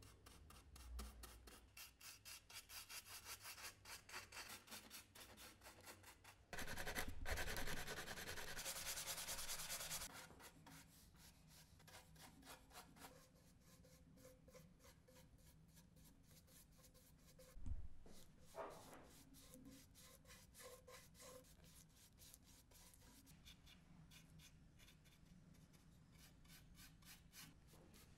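Paintbrush bristles swishing over a wooden box in quick repeated strokes as the surface is painted. A louder, denser stretch of rubbing comes about a quarter of the way in, and a single knock comes a little past halfway.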